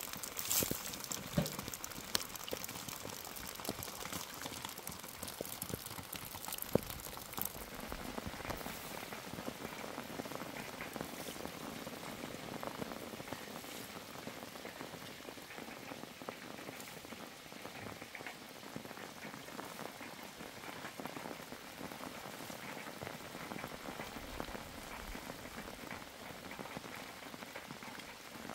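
Steady rain falling, a dense patter of drops, with a few louder single taps in the first several seconds.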